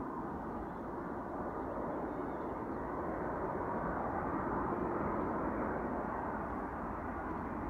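Distant Boeing 767 jet airliner on approach: a steady rumble of its engines that swells slightly.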